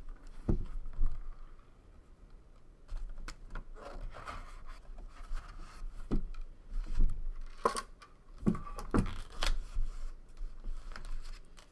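A sealed trading-card box being opened and its contents handled: scattered scrapes, tearing and rustling of cardboard and plastic, with several short knocks.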